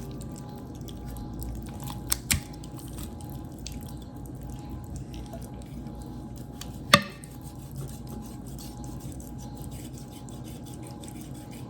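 Knife work on raw chicken thighs on a cutting board: soft wet handling and scraping of meat from the bone, with a few sharp knocks of the knife or bone on the board, two close together about two seconds in and a louder one about seven seconds in.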